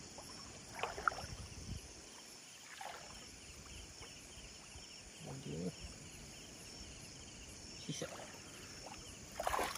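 Water swishing and splashing in short bursts as a cast net is hauled in by its rope through shallow water, over the steady pulsing chirp of night insects.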